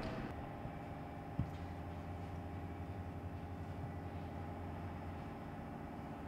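A machine running with a steady low drone, and one short knock about a second and a half in.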